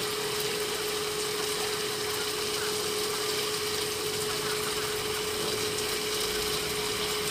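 Induction cooktop running with a steady hum at one constant pitch, under an even hiss of fish and meat sizzling in the frying pan.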